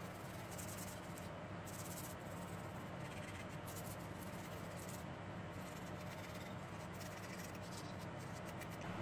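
A stiff-bristled brush scrubbing the solder side of a circuit board: bursts of quick scratchy strokes, several times, over a steady low hum.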